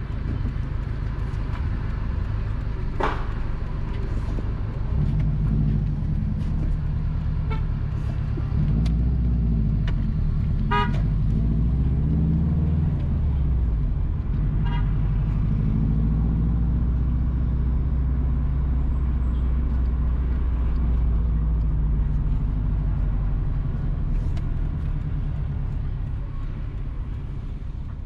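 A car driving along a town street: steady engine and road rumble, with the engine note rising and falling as it speeds up and slows. Short car-horn toots sound a few times, the loudest about three seconds in.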